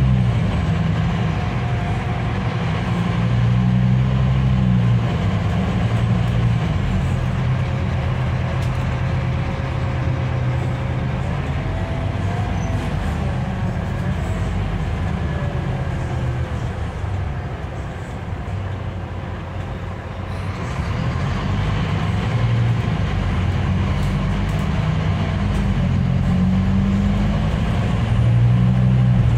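Scania K310IB coach under way, heard from inside the cabin: the rear engine's low drone with road and tyre noise, rising and falling with the driving. It eases off about two-thirds in, then builds again.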